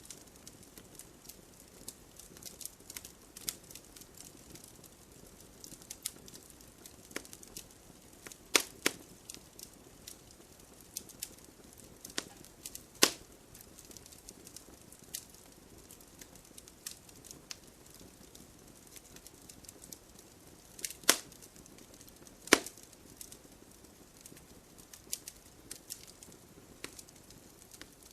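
Wood fire crackling: a faint hiss with frequent small sharp pops and snaps, and a few louder cracks about 8, 13, 21 and 22 seconds in.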